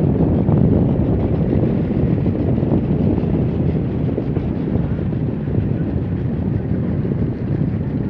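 Steady low rumble of wind buffeting the microphone aboard a moving tour boat, mixed with the boat's engine noise.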